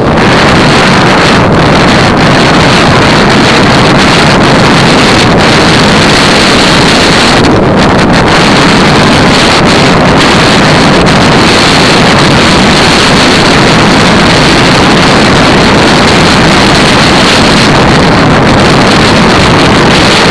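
Loud, steady wind rushing over the microphone of a camera mounted on a bicycle moving at about 39 km/h, mixed with tyre noise on a wet road.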